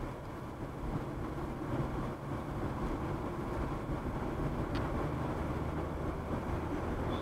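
Steady road and engine noise inside a moving car, picked up by the windshield dashcam's microphone.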